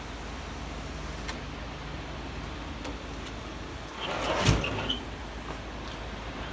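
A sliding balcony door is rolled open, with a rumble and a sharp knock about four and a half seconds in, over a steady background hum.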